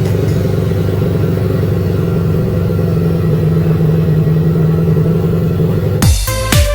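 Steady drone of a motor vehicle's engine and road noise, even and unchanging. Electronic dance music with a thumping beat cuts in near the end.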